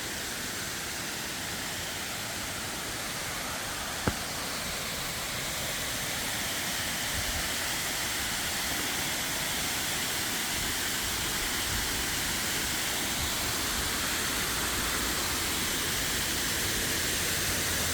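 Steady rushing of a waterfall cascading down into its pools, growing a little louder partway through, with one brief click about four seconds in.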